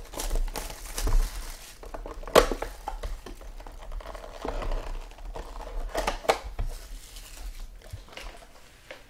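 Crinkling and rustling of card packaging as trading cards are handled and a pack is opened, with sharp snaps about two seconds in and a pair a little after the sixth second.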